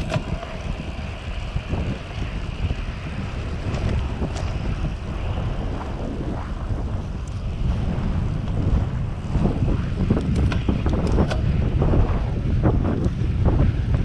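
Wind buffeting the microphone as a Trek 1400 road bike is ridden fast, a low rumbling roar that grows louder over the first eight seconds or so. A few sharp knocks sound in the second half.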